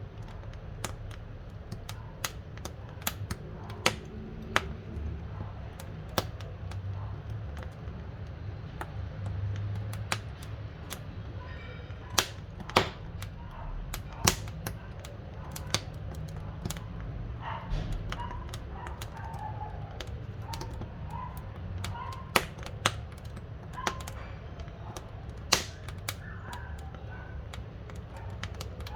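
Firewood burning in a wood-burning stove, crackling with irregular sharp pops, a few louder than the rest, over a steady low rumble of the flames.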